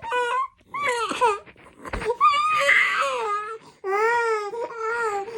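Congested toddler crying in a run of short wailing cries, with a longer, rougher, louder cry about two seconds in.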